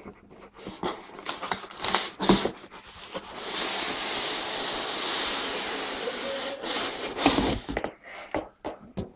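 Cardboard box and packaging being handled and pulled off: knocks and rustles, then a steady scraping hiss of cardboard sliding for about three seconds, then more sharp knocks near the end.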